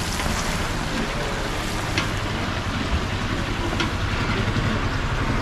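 Busy outdoor bustle: a steady wash of noise over a low engine rumble, with a few sharp clicks.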